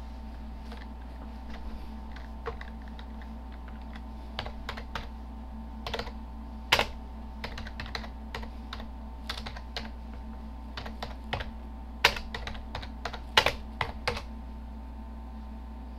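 Typing on a computer keyboard: irregular keystroke clicks in short runs with pauses, with a few louder strokes around the middle and near the end. A steady low hum runs underneath.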